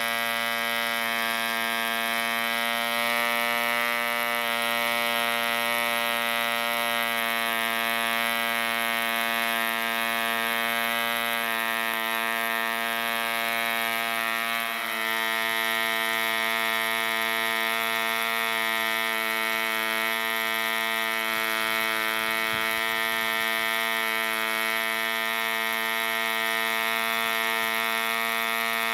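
Mills 1.3 model diesel, a small two-stroke compression-ignition engine, running steadily at high speed with a continuous buzzing note. A brief dip about halfway through, after which it runs on at a slightly changed note. The engine is running sweetly.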